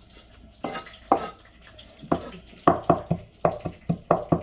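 Kitchen knife chopping parsley on a wooden cutting board: sharp knocks of the blade on the board, a couple at first, then a quick run of about four to five chops a second in the second half.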